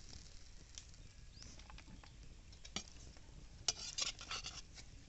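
Metal spatula stirring chicken in a kadai: faint scraping with a few light clinks, most of them bunched together about four seconds in.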